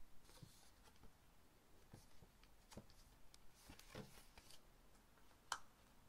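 Faint rustling and handling of a glossy paper cosmetic leaflet, with soft taps and small ticks, and one sharper click about five and a half seconds in.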